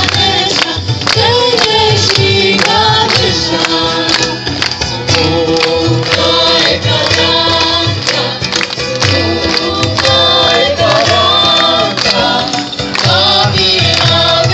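A group singing a devotional song to Ganesha in chorus, with a hand drum keeping a steady beat underneath.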